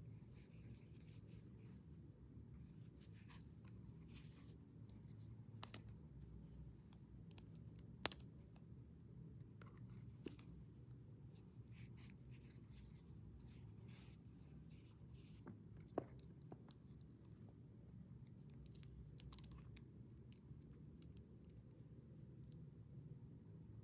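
Near silence: faint scattered clicks and taps of small objects being handled over a low steady hum, with a few sharper single clicks about six, eight, ten and sixteen seconds in.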